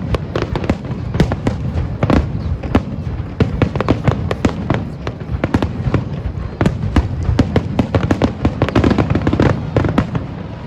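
Fireworks going off in a rapid barrage: dense crackling bangs, many per second, over a steady low rumble, thinning out near the end.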